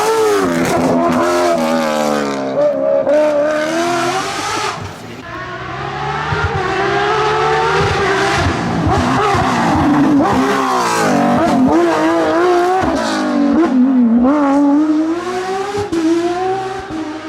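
Rally car engines revving hard on a special stage, the pitch climbing and dropping repeatedly through gear changes and lifts, with a dip in loudness about five seconds in before the engine note builds again.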